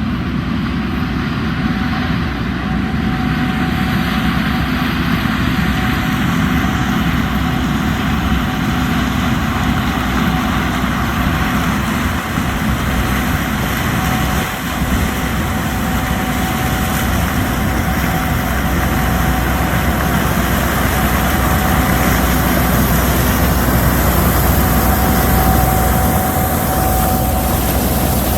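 Heavy diesel farm harvest machinery running steadily, a dense engine drone with a thin, steady whine over it.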